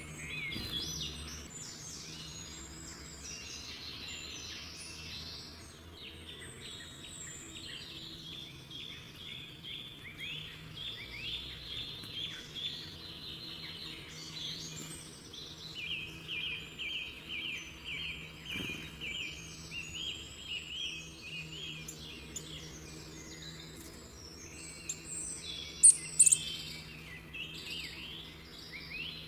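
Several birds singing and chirping together, with a fast, evenly repeated trill in the middle and two sharp high chirps, the loudest sounds, a few seconds before the end. A faint steady low hum lies underneath.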